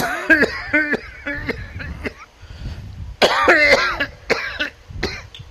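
A man coughing and clearing his throat in a run of short, voiced bursts, the loudest about three seconds in: a coughing fit.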